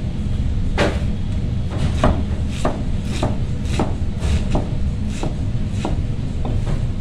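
Large kitchen knife chopping cabbage on a cutting board: sharp chops at roughly two a second, starting about a second in. A steady low rumble runs underneath.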